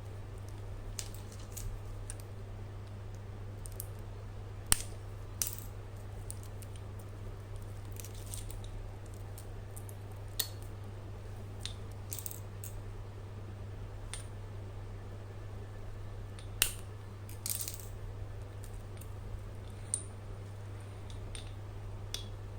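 Scattered light metallic clicks and clinks of a steel-wire skipping rope with aluminium handles being handled, with two sharper clacks about 5 and 17 seconds in, over a steady low hum.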